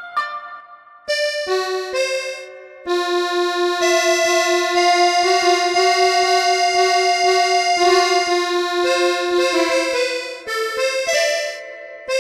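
Background instrumental music: a melody of short notes for the first few seconds, then long held notes from about three seconds in.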